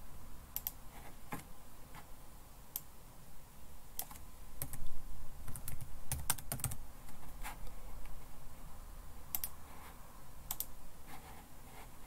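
Typing on a computer keyboard: irregular, scattered keystrokes.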